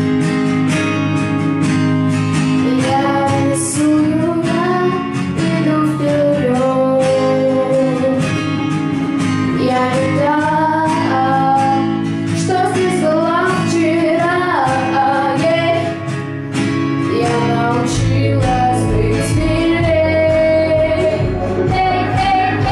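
A girl singing a song into a microphone over a guitar accompaniment. A deeper bass part comes in near the end.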